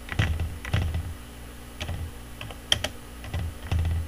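Computer keyboard being typed on: about eight separate keystrokes at an uneven pace.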